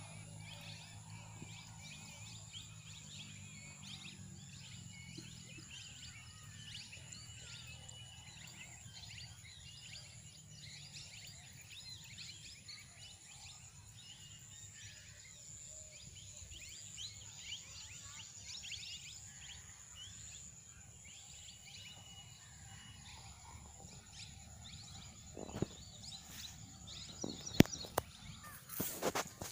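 Open-field ambience with many small birds chirping over a steady high-pitched whine and a low hum. A few sharp clicks come near the end.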